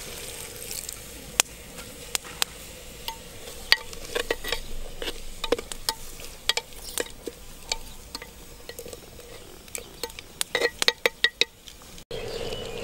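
Clay cooking pot over an open wood fire: irregular sharp crackles and pops over a low background noise, as the pot's contents cook. Near the end the crackling gives way abruptly to a steadier noise.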